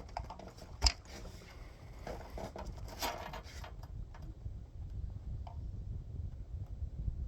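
Handling noise: a sharp click about a second in, a few lighter clicks, and a patch of rustling, over a low steady rumble.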